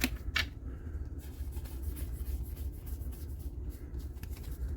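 Trading cards being handled and slid through the hands, giving light clicks and faint rustles, with two sharper clicks near the start, over a steady low hum.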